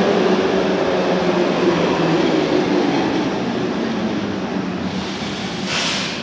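Hamburg U-Bahn DT3 train pulling into an underground station and braking to a stop, its running and motor tones falling in pitch as it slows. A short hiss comes near the end.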